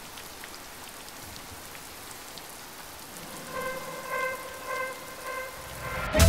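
Steady rain-like hiss with faint scattered ticks; from about halfway, a soft pitched note repeats four times, and loud music cuts in right at the end.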